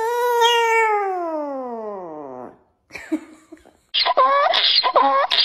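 A chihuahua's long drawn-out howl, sliding steadily down in pitch over about two and a half seconds. Then, about four seconds in, a donkey starts braying in quick repeated cycles.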